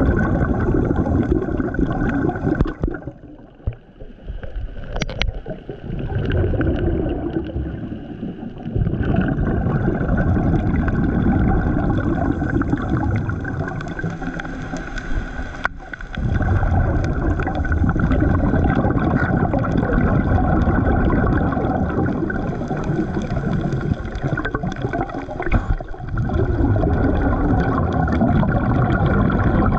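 Muffled underwater rushing and gurgling of water moving around a GoPro Hero 9 held below the surface. It drops quieter for several seconds near the start, and there is one sharp click about halfway through.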